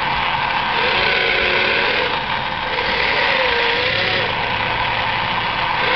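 Radio-controlled toy wheeled excavator running as it digs sand: a motor whine that rises and falls in pitch several times as the boom and bucket move, over a steady mechanical hum.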